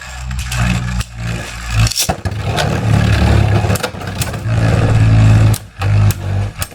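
Two Beyblade Burst tops spinning and grinding against each other in a plastic stadium: a steady whirring rumble broken by many sharp clicking hits.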